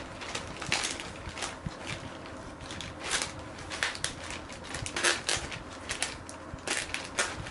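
Plastic courier mailer bag crinkling and rustling in irregular bursts as it is handled and slit open with a utility knife.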